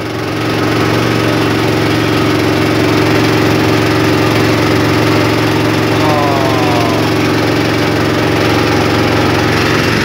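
Small motorboat's engine running steadily at cruising speed, a loud, even drone. About six seconds in, a brief falling cry or call sounds over it.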